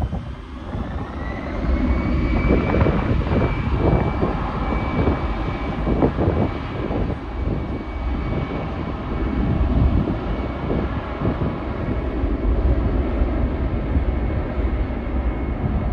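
An easyJet Airbus A320-family airliner's jet engines spooling up to take-off power: a whine climbs about a second and a half in and then holds steady over a loud, continuous jet rumble as the aircraft starts its take-off roll. Wind buffets the microphone at the low end.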